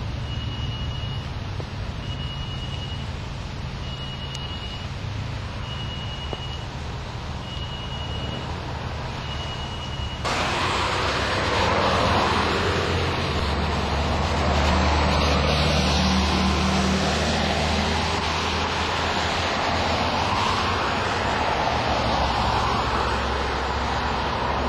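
Car driving on a highway, heard from inside: low engine and road rumble, with a high electronic beep repeating about every second and a quarter for the first ten seconds. About ten seconds in, the sound jumps abruptly to a much louder, even rush of road and wind noise.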